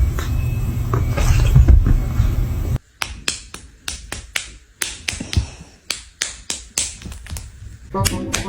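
Hairless cats fighting: a loud, noisy scuffle that cuts off suddenly about three seconds in, followed by a run of sharp, separate smacks, a couple each second. Music starts near the end.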